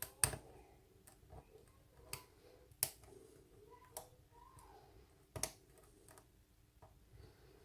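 Sharp, irregularly spaced clicks, about eight in all, from a lock pick working the pin stacks of an Assa Abloy Fab Euro cylinder during single-pin picking under light tension.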